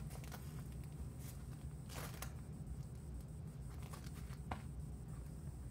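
Soft rustling and brief scratchy sounds of a fabric dog vest being pulled snug and smoothed over a dog's body, over a low steady hum.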